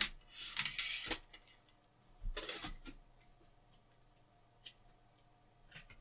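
Handling noise of a mains cable and plug being plugged in: two short spells of rustling and clattering in the first three seconds, then a few light clicks. No motor is running.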